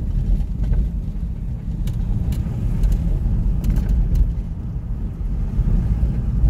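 Steady low rumble of a vehicle on the move, with a few faint clicks.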